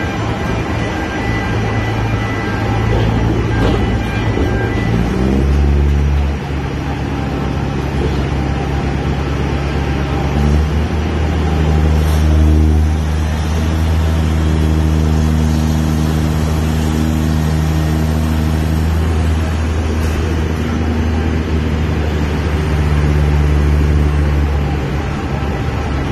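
Rubber-tyred gantry crane's engine and hoist machinery running steadily and loudly, the pitch stepping up about five seconds in and again around eleven seconds in, then dropping back near the end.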